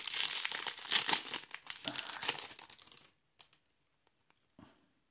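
Foil wrapper of a Donruss Optic trading card pack crinkling and tearing as it is peeled open by hand; the crinkling stops about three seconds in. A few faint clicks follow as the cards are handled.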